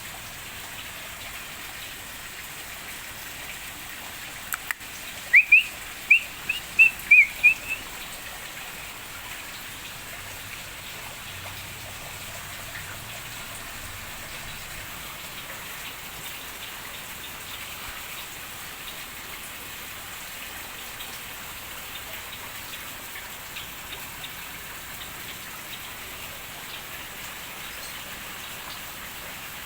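Steady rain-like hiss of falling water. About five seconds in, after two light taps, a bird gives a quick run of about seven short, high chirps over some three seconds.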